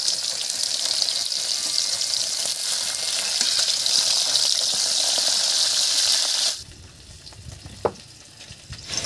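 Pabda fish frying in hot mustard oil in a wok: a steady, dense sizzle while a metal spatula moves them. The sizzle cuts off suddenly about six and a half seconds in, leaving a quiet background with a single click near the end.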